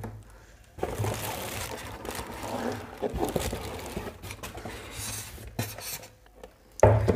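Plastic bag crinkling and foam packing pieces rubbing as a monitor wrapped in a plastic bag is handled, with a louder bump near the end.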